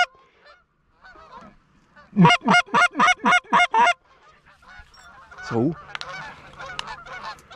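Canada geese honking: a quick run of about seven loud honks, about four a second, then a single longer honk about five and a half seconds in, followed by a fainter chorus of many geese calling.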